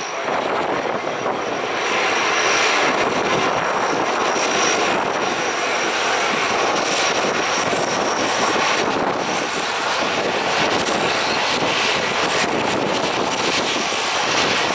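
Four turboprop engines of a C-130 Hercules running loud as the transport rolls along the runway close by, growing louder about two seconds in as it draws level.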